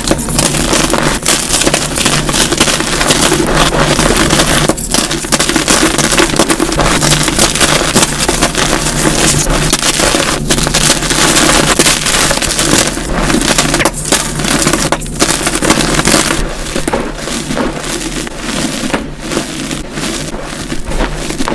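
Dyed gym chalk blocks and crumbled chalk crushed and squeezed by hand, a dense run of crunching and crackling played at double speed. Toward the end the crunches come as separate squeezes with short gaps between them.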